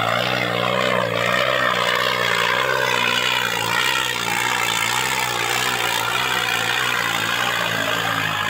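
New Holland tractor's diesel engine running hard under heavy load as the tractor churns through sand. It is a steady, loud drone with a wavering pitch.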